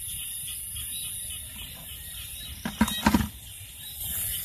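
Night insects chirring steadily, with a short cluster of knocks and rattles a little under three seconds in.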